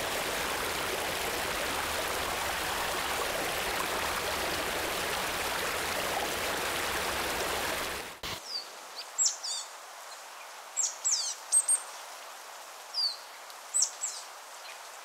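A stream flowing over rocks, a steady rush of water for about eight seconds that then cuts off abruptly. Afterwards, over a quiet background, small birds give a series of short, high, falling chirps.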